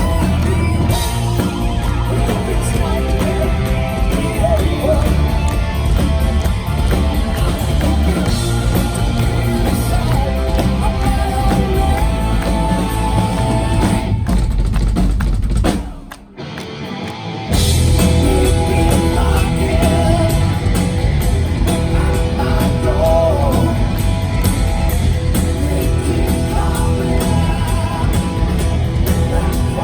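Live rock band playing with singing, drum kit and electric guitar. About halfway through, the music drops away almost completely for a moment, then the full band crashes back in.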